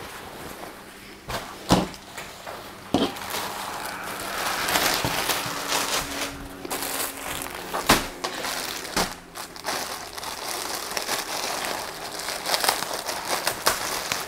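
Plastic packaging bags crinkling and rustling as clothing is handled, with scattered sharp crackles, the loudest about eight seconds in.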